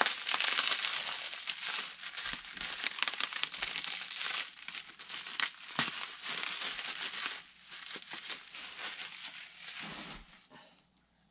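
Plastic bubble-wrap packaging crinkling as it is pulled off a part by hand, full of small sharp clicks, dying away about ten seconds in.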